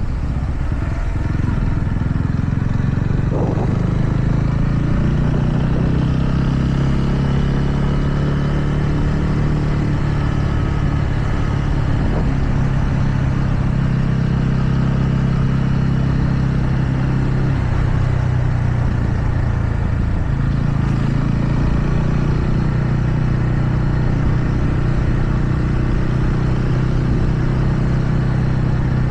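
TVS Ronin's single-cylinder engine running at a steady cruise, with wind and road noise. The engine note dips a little past halfway, then picks back up as the throttle opens again.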